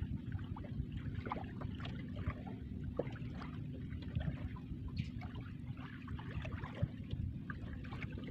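Sea water lapping and splashing against a small boat's hull, with a steady low rumble and many small scattered drips and splashes.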